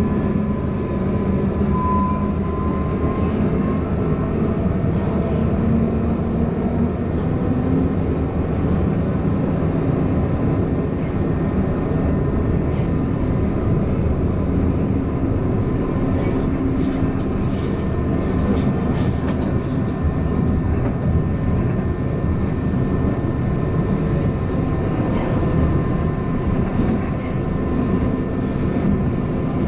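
A Class 399 tram-train running at speed, heard from inside the car: a steady low rumble of wheels on rail with a faint steady whine over it. A run of light clicks comes about halfway through.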